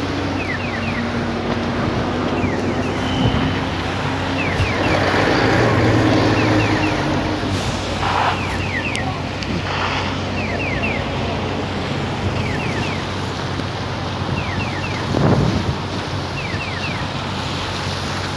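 Traffic on a wet city road: cars and buses running, their tyres hissing on the wet asphalt over a steady engine hum, with wind on the microphone.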